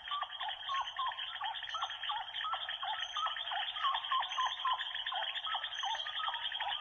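Zebras calling: a quick, continuous run of short, high calls, about three a second.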